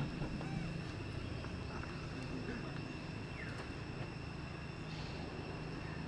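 Outdoor ambience: a steady high-pitched insect drone over a low steady hum, with a few faint, short chirping calls now and then.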